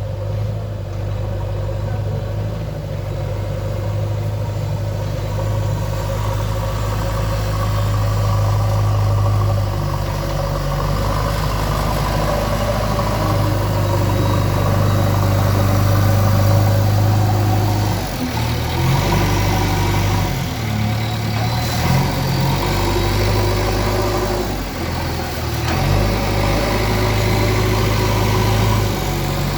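JCB 3DX backhoe loader's diesel engine running, a steady low note that dips and rises several times in the second half as the machine works.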